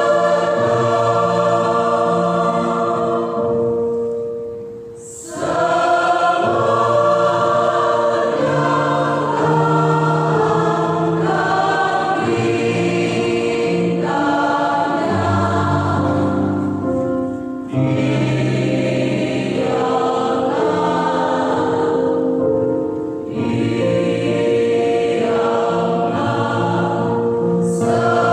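Church choir singing a hymn in several parts with held notes, the sound dropping briefly between phrases about five seconds in and twice more later.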